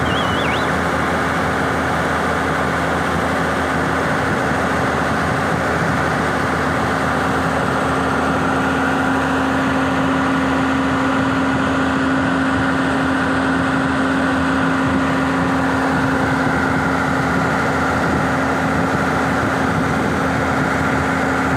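Diesel engine of a JCB machine idling steadily close by, a constant hum with one held low tone.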